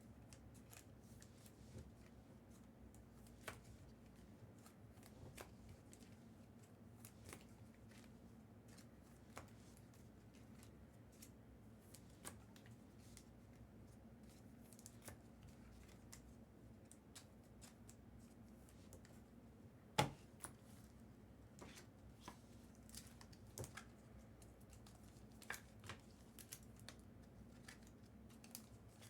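Quiet handling of trading cards and foil pack wrappers: scattered soft clicks and rustles, with one sharper click about twenty seconds in, over a faint low hum.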